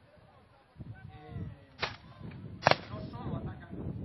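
Two sharp black-powder musket shots about a second apart, the first nearly two seconds in.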